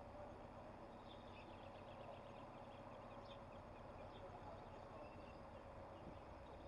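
Faint birdsong, scattered short high chirps, over a low steady hum.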